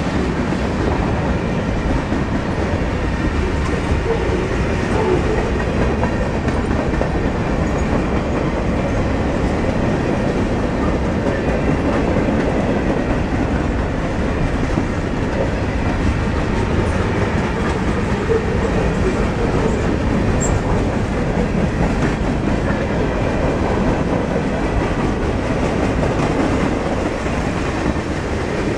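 Freight train cars (centerbeam flatcars, boxcars and tank cars) rolling steadily past: a continuous rumble of steel wheels on the rails.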